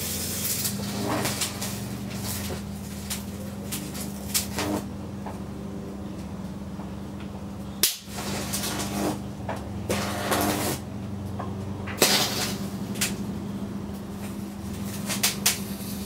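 Unballasted microwave oven transformer humming steadily under high-voltage load, with irregular crackling and snapping of arcs burning across a plasma TV panel. The hum drops out briefly about halfway through, and the loudest crack comes a few seconds later.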